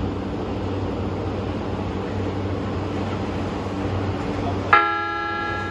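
Steady hum of an E235-series Yokosuka Line electric train standing at the platform. About three-quarters of the way through, a loud pitched tone with many overtones starts suddenly and rings on.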